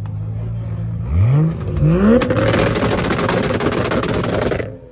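Toyota Supra MK4's 2JZ straight-six idling, then revved quickly twice. It is then held high with a rapid stream of pops and crackles from the exhaust, the anti-lag firing, which cuts off suddenly near the end.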